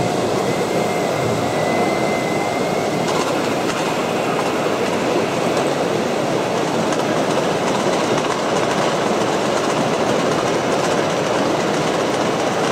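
Steady rattling rumble of 1:8 scale RC model machines working a gravel course. A faint whine rises gently in the first few seconds.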